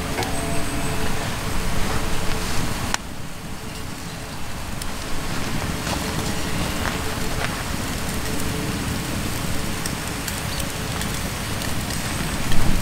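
Small wood fire crackling, with scattered sharp pops, over a steady rushing background.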